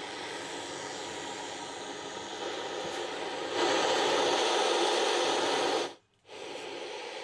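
Untuned FM radio static hissing from the F&D A111F 2.1 home theater's speakers, a sign that the repaired set is again passing sound. The hiss steps up louder about three and a half seconds in, then cuts out for a moment near the end before returning.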